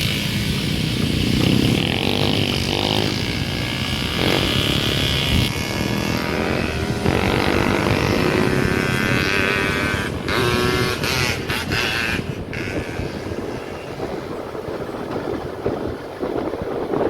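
Motorcycle running on the move, with a steady engine and road noise.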